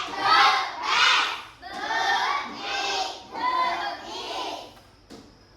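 A class of young children chanting in unison, a loud syllable about once a second, as in repeating letter sounds after the teacher; the chanting stops near the end.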